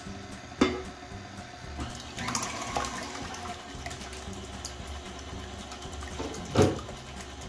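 Stand mixer running with its wire whisk beating still-liquid egg whites, which slosh around the steel bowl at the start of whipping toward soft peaks. Two sharp knocks stand out, one about half a second in and one near the end.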